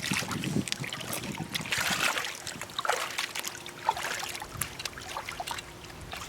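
Shallow seawater trickling and splashing among tide-pool rocks, with scattered small clicks and knocks as the rocks and water are disturbed.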